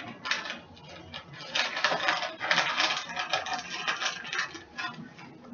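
Kitchen handling noise: a dense run of crackles and light clicks that thickens about one and a half seconds in and thins out near the end.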